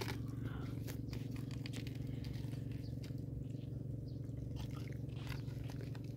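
A steady low droning hum, with scattered light clicks and taps over it.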